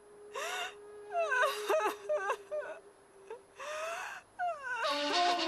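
A woman wailing and sobbing in grief: several wavering, breaking cries with short pauses between them.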